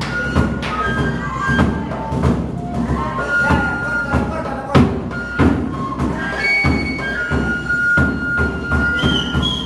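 Music with regular drum thuds under a high piping melody of short notes, ending on a long held note.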